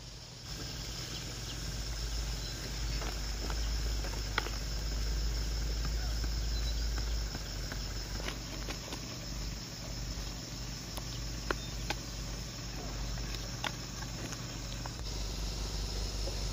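Insects chirring in a steady, high, even drone over a low rumble, with scattered light clicks and ticks.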